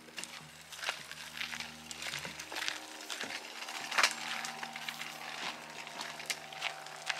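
Footsteps crunching on a trail, roughly one step every half second or so, the loudest about four seconds in.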